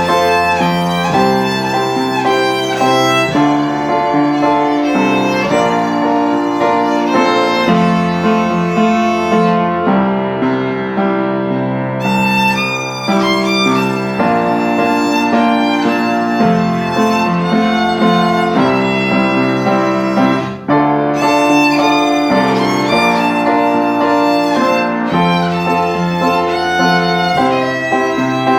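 Instrumental performance of a pop song, played continuously: a melody over sustained chords.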